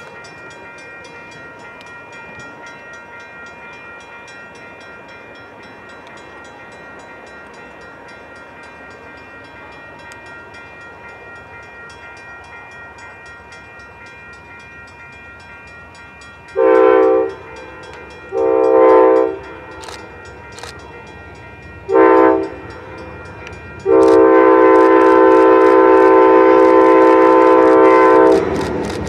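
Amtrak GE Genesis diesel locomotive's air horn sounding the grade-crossing signal: two long blasts, a short one, then a long one held about four seconds. The rumble of the approaching passenger train builds as the last blast ends.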